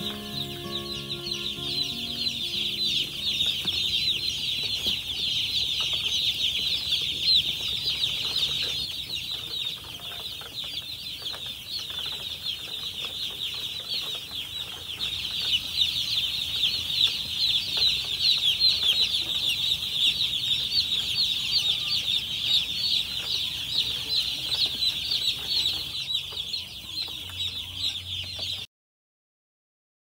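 A dense chorus of broiler chicks peeping nonstop, many high cheeps overlapping. Faint background music fades out in the first two seconds, and all sound cuts off abruptly shortly before the end.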